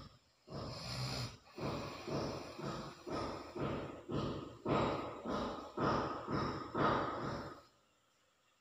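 Snoring in deep sleep: a quick run of noisy, snorting breaths, about two a second, that stops near the end.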